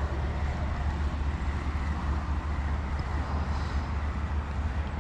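Steady low rumble with a noisy hiss, typical of wind buffeting the microphone outdoors, with no distinct events.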